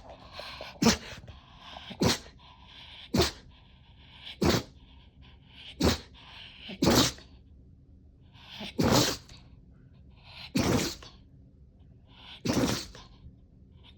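A pet sneezing over and over in a fit: nine sharp sneezes about one to two seconds apart, the last three a little longer and spaced wider.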